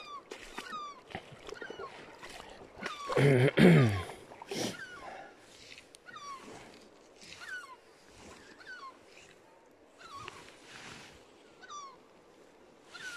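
A loud, drawn-out animal call falling in pitch, about three seconds in, over a run of short high downward chirps that repeat every second or so.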